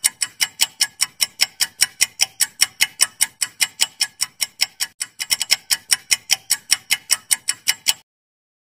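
Clock-tick sound effect for a quiz countdown timer: steady sharp ticks, about four a second, that cut off suddenly near the end.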